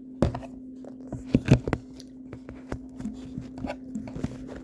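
Handling noise from the pieces of a kinetic sand toy set: a sharp knock about a quarter second in, two more close together around a second and a half in, and lighter taps and rustles. A steady low hum runs underneath.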